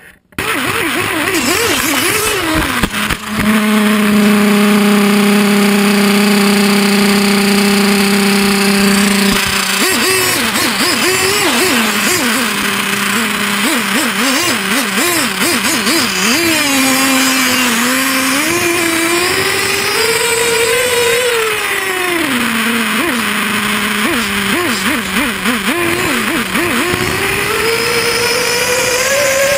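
Radio-controlled model snowmobile's motor, heard from a camera on board: a steady hum for several seconds, then rising and falling in pitch again and again as the throttle is worked, with a long rise near the end.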